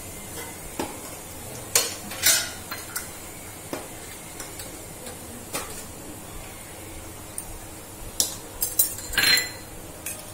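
Hot oil sizzling softly in a small pan as a tempering of whole dried red chillies, cumin and ground fenugreek fries. A few sharp metallic clinks of a spoon against the utensils are heard, clustered most loudly near the end.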